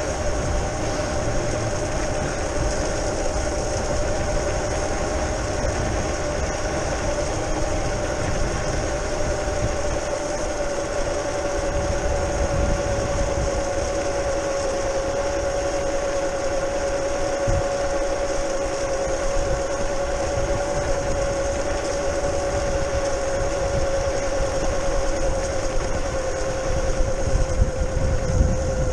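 Brushless outrunner motor of a modified Razor E300 electric scooter whining at a steady pitch that drifts slightly lower, over a continuous low rumble from the ride.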